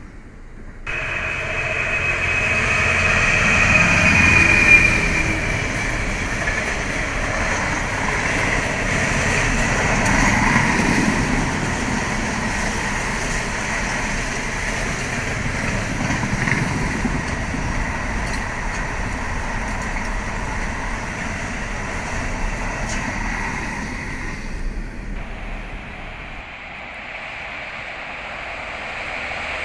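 Freight train of container flat wagons passing, its wheels rumbling and clattering on the rails with a high steady whine alongside. The sound eases off after about 25 seconds as the train clears, then starts building again near the end as another train approaches.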